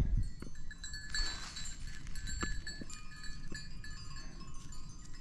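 Metal bells worn by a herd of grazing goats, clinking and ringing irregularly as the animals move.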